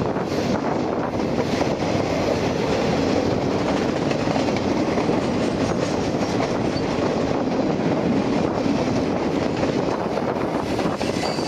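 Freight cars of a manifest train rolling past at speed, a mix of boxcars, covered hoppers and tank cars. Their steel wheels make a steady, continuous noise on the rails.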